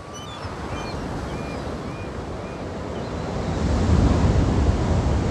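Sea surf and wind noise swelling steadily louder, with a few short gull cries in the first three seconds and a deep rumble building near the end.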